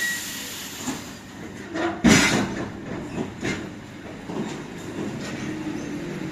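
Suburban electric train heard from inside the carriage, running with a steady rumble and wheel knocks over the rail joints. A hiss fades over the first second, and there is one loud clunk about two seconds in.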